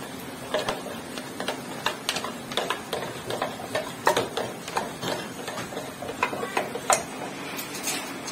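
A spoon clicking and scraping against a container while stirring cornstarch into water for atole: irregular light clinks, about two or three a second.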